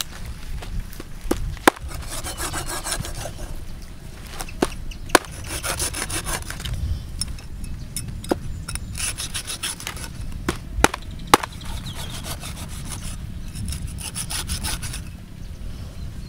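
A meat cleaver cutting through stingray flesh and skin on a wooden chopping board, in bursts of quick back-and-forth scraping strokes with pauses between them. A few sharp knocks come from the blade striking the board.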